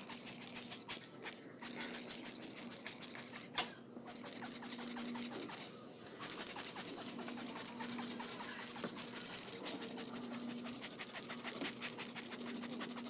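Rapid, scratchy scrubbing of a paintbrush working soapy water over wet diesel engine parts, in dense continuous strokes.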